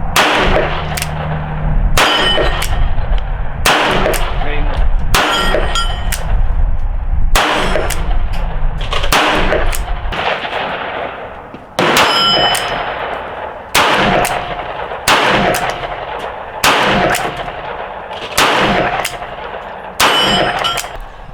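A Rock Island .38 Special revolver fires about a dozen single-action shots, one every couple of seconds, with a longer pause near the middle. Several shots are followed by a brief metallic ringing.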